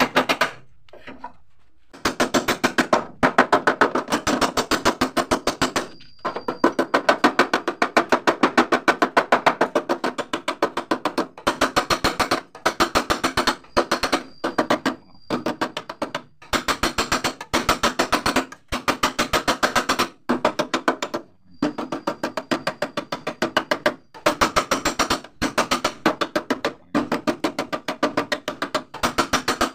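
Rapid light hammer taps on the sheet-metal door panel of a Mitsubishi L300 van, about ten a second in runs of one to three seconds with short pauses, tapping out a dent without damaging the paint.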